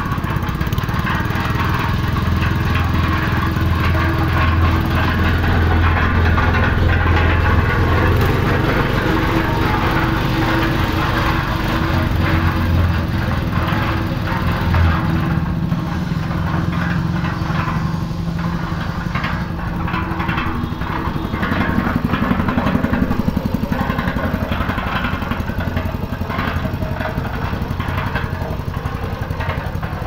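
Small petrol engine of a mini concrete mixer running steadily, driving the drum through a double pulley belt reduction. Its note shifts about halfway through.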